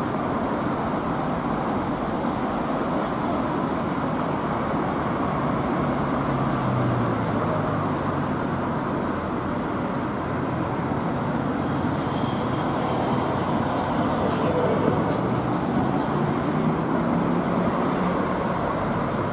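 Steady road traffic noise from passing cars, with an engine hum rising and falling about six seconds in and again near the end.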